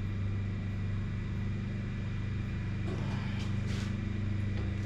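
A steady low hum, with a few faint clicks and rustles about three seconds in.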